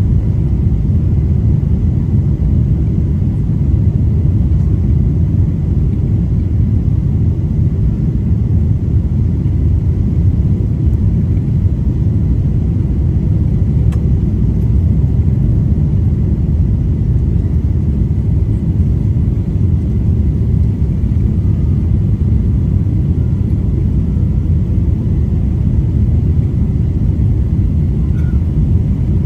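Cabin noise of a jet airliner descending on approach with flaps extended: a steady low rumble of engines and airflow, heard from a window seat over the wing, with a faint thin steady tone above it.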